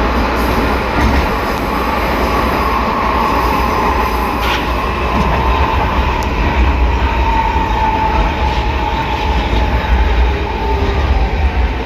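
Metro train's traction motor and inverter running, heard from inside the car, with a whine that slowly falls in pitch over a heavy low rumble. A growl from the reduction gearbox runs under it, which the uploader puts down to a probable lack of lubrication.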